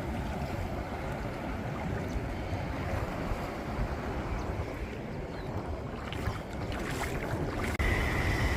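Wind buffeting the microphone over the steady wash of the sea, with a few short sharp sounds about six to seven seconds in. Near the end the low rumble of the wind grows louder and a faint steady high tone comes in.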